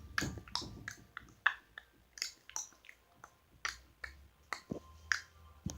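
Tongue clicks: a person pops the tongue off the roof of the mouth again and again, about twice a second, in sharp, separate, slightly uneven clicks.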